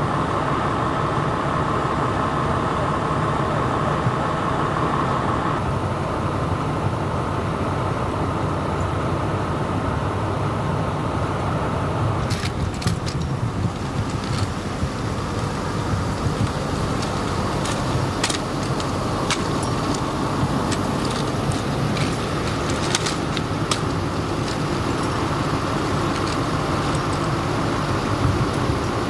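Steady rumble of idling vehicle engines and street traffic. A faint steady tone drops out about five seconds in, and scattered sharp clicks come through the middle of the stretch.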